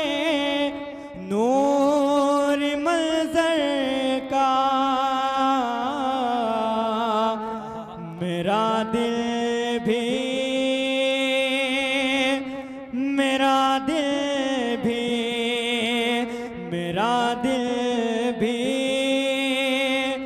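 A man singing a naat in Urdu solo, unaccompanied, into a microphone: long held notes with ornamented glides in pitch, phrase after phrase with short breaths between.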